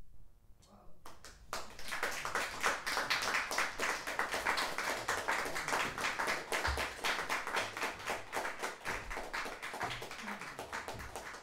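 Audience applauding, starting about a second in and slowly thinning out toward the end.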